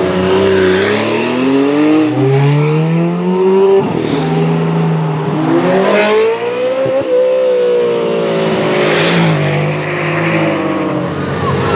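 Ferrari 430 Scuderia's V8 engine revving hard. Its pitch climbs, drops sharply about four seconds in, climbs again, then slowly falls away.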